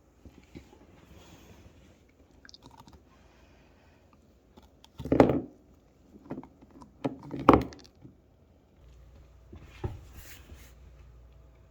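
A pet gnawing and chewing on a bone, with several loud crunches in the middle.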